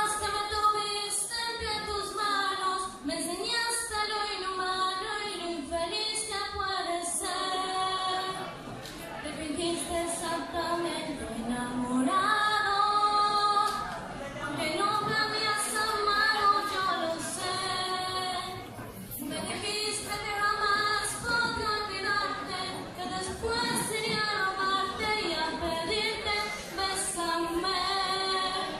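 A young woman singing solo into a microphone, in long held phrases with short breaks between them.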